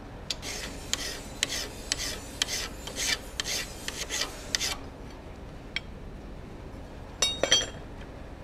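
Hand file rasping across the bevel of a 4142 steel hot-cut chisel clamped in a vise: about nine steady strokes at roughly two a second, shaping the chisel's cutting edge. The strokes stop, and a short metallic clink follows near the end.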